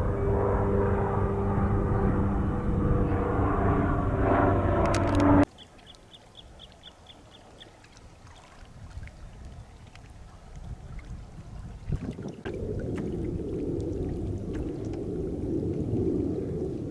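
A steady engine drone that stops abruptly about five seconds in. It gives way to a quieter stretch: a quick run of high, evenly spaced bird notes, scattered small clicks, and from about halfway on a steady low rushing noise, as of water.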